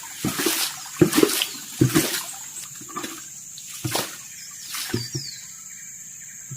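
Water splashing and sloshing in irregular strokes, about one a second, thinning out near the end, over a steady high-pitched insect drone.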